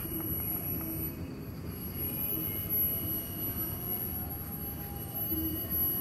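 Tropical forest ambience: a steady low rumble with faint, thin, steady high-pitched tones over it.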